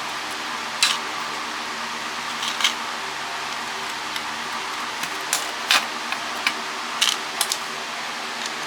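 Irregular sharp metallic clicks and clinks of hand tools working on the cast aluminium housing of a satellite LNB, about nine in all, over a steady fan-like hiss and hum.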